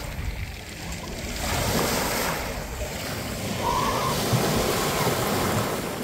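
Small sea waves washing in over a pebble beach, the wash swelling twice.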